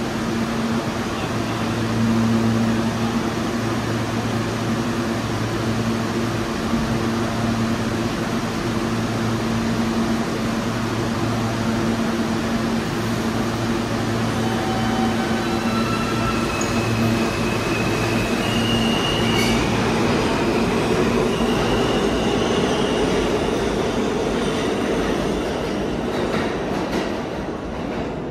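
New York City subway train moving through the station: steady rumble with a low hum, and brief high-pitched wheel squeals in the middle; the noise eases off near the end.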